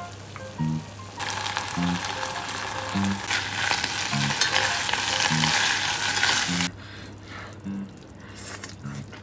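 Food sizzling in a hot frying pan for about five and a half seconds, growing louder about three seconds in and cutting off suddenly, over soft background music with a slow, steady beat.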